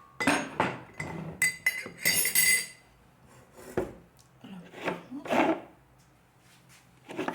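Kitchen utensils and dishes clinking and knocking against glass: several sharp clinks with brief ringing in the first couple of seconds, then softer scraping and handling noises and one more knock near the end.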